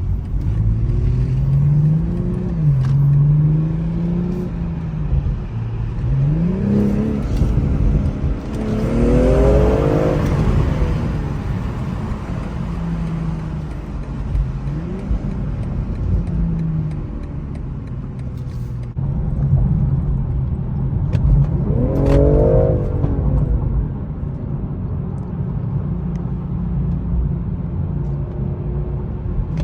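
BMW M340's turbocharged inline-six engine under way, its pitch climbing and dropping back as it shifts up through the gears. It pulls harder twice, about a third of the way in and again about three quarters in.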